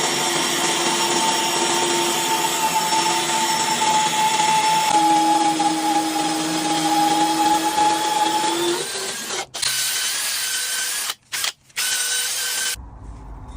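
Electric power tool motor running steadily with a whine. About nine seconds in the tone changes, the sound drops out briefly twice, and it turns quieter near the end.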